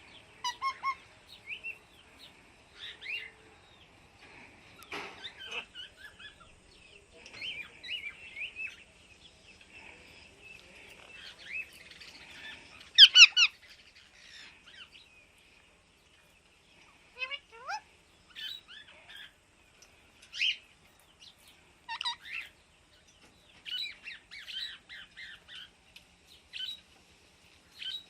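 Pet parrots chirping and squawking in short, scattered calls. The loudest burst of calls comes about halfway through, and a few rising calls follow later.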